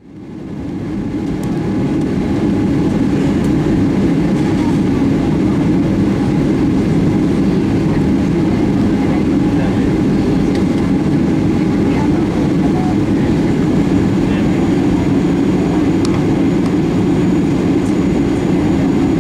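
Steady low cabin rumble inside a Boeing 737-800 taxiing, its CFM56-7B engines running. The sound fades in over the first two seconds.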